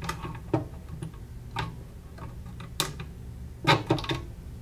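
Small irregular metallic clicks and ticks, about half a dozen, as a 3 mm T-handle Allen key turns out the side-panel screws of a Desert Tech SRS-A2 rifle chassis, with a quick cluster of clicks near the end.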